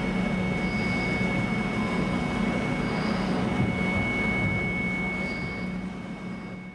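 Steady mechanical drone with a high, even whine over a low hum, fading out near the end.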